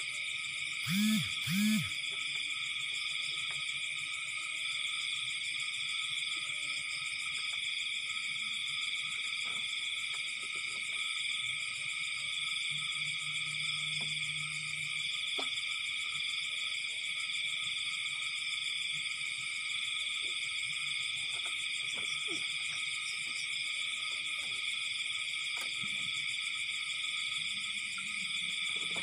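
Steady night chorus of insects and frogs: a constant shrill trilling layered at several pitches. About a second in, two short, loud, low calls come in quick succession, each rising and falling.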